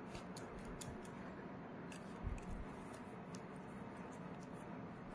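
Garlic cloves being grated on a flat stainless-steel hand grater: faint, irregular short scraping clicks, with a soft low thump about two seconds in.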